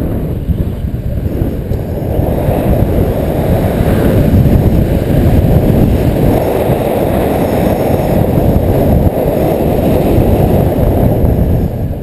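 Wind buffeting the microphone of a handheld action camera during a paraglider flight: a loud, steady low rushing rumble that grows a little louder about two seconds in.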